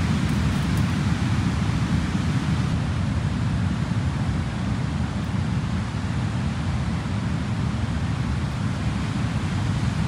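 Wind buffeting the microphone: a steady low rumble under an even hiss.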